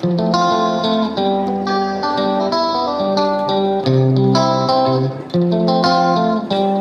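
Intro music: plucked guitar notes in a steady rhythm.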